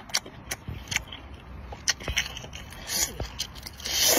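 Close-up eating sounds of a whole cooked octopus being bitten and sucked: a string of short wet smacks and clicks, with a louder slurp near the end as the tentacles are drawn into the mouth.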